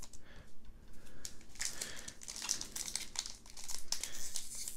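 Foil Pokémon booster pack wrapper crinkling and tearing as it is opened by hand, a rapid crackle that grows much louder about one and a half seconds in.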